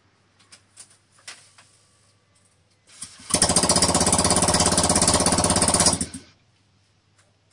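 Honda PCX scooter's single-cylinder four-stroke engine started with its muffler removed. About three seconds in, it fires and runs with a rapid, loud popping from the open exhaust port, a sound called 'cute'. It stops abruptly about three seconds later.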